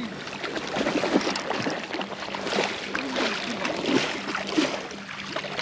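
River water gurgling and lapping, with a busy stream of small liquid splashes and bubbling blips.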